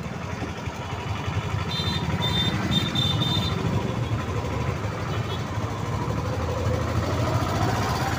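Steady running noise and road rumble of a moving three-wheeled rickshaw amid traffic, heard from inside the rickshaw. A few short, high-pitched beeps sound about two to three seconds in. Near the end a smooth rising whine sets in as the rickshaw picks up speed.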